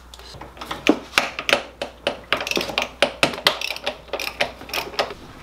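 Hand socket ratchet clicking in short, irregular runs, with light metal taps, as the 17 mm bolts of a transmission mount bracket are worked loose.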